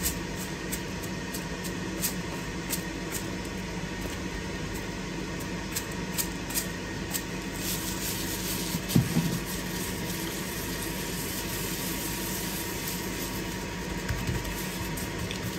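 Raw steak being seasoned: a spice container held over the meat gives a run of sharp clicks and rattles, several a second. After about eight seconds a gloved hand rubs the seasoning into the steak on plastic wrap, making a soft rustle. A steady hum runs underneath.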